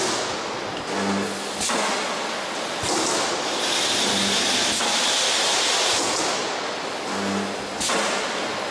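Pressed-steel radiator panel production line running: a steady machine noise and a low hum, with sharp metal clanks at about one and two seconds in, again near three seconds and near the end, and a hiss that lasts about two and a half seconds in the middle.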